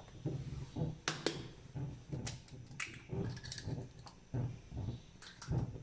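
Eggs being tapped and cracked against a glass bowl and the shells pulled apart: a run of short sharp clicks and light knocks, several a second, with soft low thuds between them.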